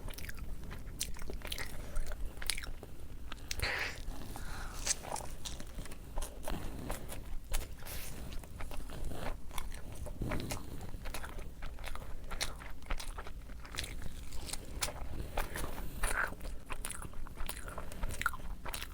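Close-up eating sounds of a person chewing and biting a meal of rice and fish, with irregular small clicks and crunches throughout.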